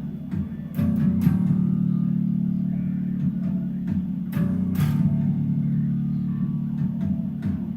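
Electric bass guitar playing sustained low notes through the song, with a few sharp hits in pairs.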